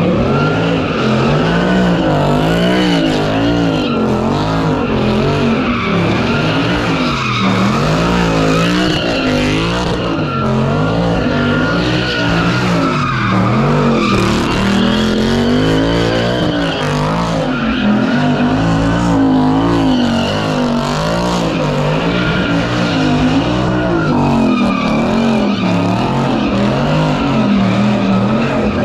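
A car doing donuts: its engine revs up and down over and over while the tires squeal without a break.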